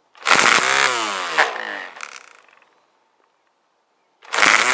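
Ryobi 18V cordless string trimmer, trigger squeezed to full speed and released twice. Each time the motor and line head whir up at once, then coast down with a falling whine, the second run starting near the end. Each start-stop cycle feeds out line, which the blade on the guard trims only when the head gets up to full speed.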